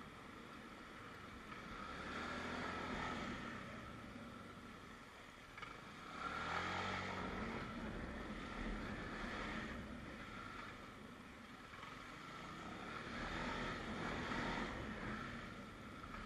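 Traffic and wind noise heard while riding through city streets, swelling and fading as vehicles pass; about six seconds in a passing vehicle's engine grows louder.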